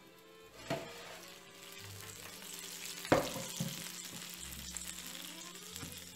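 Hot baking pan of chicken and batter sizzling fresh out of the oven, with a knock as the pan is pulled out and a louder clunk about three seconds in as it is set down.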